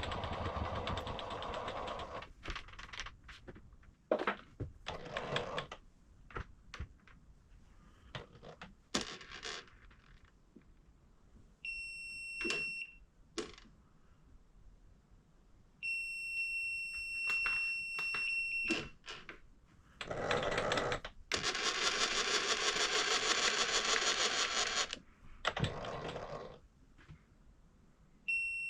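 Electronic edge finder on a milling machine buzzing with a steady high beep as it touches off the workpiece: once briefly about twelve seconds in and again for about three seconds a little later. Clicks and handling noises come in between, and about twenty seconds in there is a loud rushing noise lasting about five seconds.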